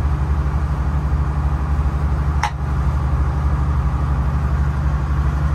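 Motorboat engine running steadily underway, a low, evenly pulsing drone. A single sharp click about two and a half seconds in.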